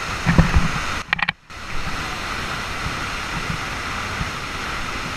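Waterfall rushing steadily, with a few thumps in the first second and a brief break just after a second in.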